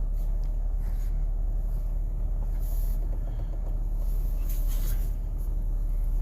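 2006 Ford Escape running, a steady low rumble with no change in level.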